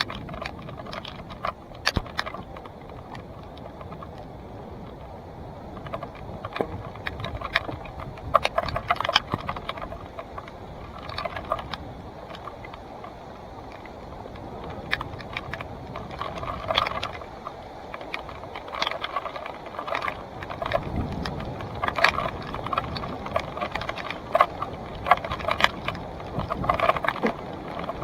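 Salsa Timberjack hardtail mountain bike ridden over rough singletrack. Its chain and parts clatter and rattle in quick, irregular clicks over a steady rush of tyre and trail noise.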